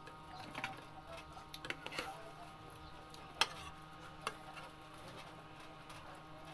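Metal spoons and forks clinking and scraping on plates while eating, a few sharp clinks, the loudest about three and a half seconds in, over a faint steady hum.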